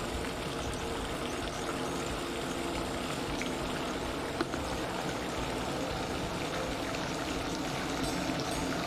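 Steady splashing and trickling of water from a pond fountain spraying into the pond, with one small click about four and a half seconds in.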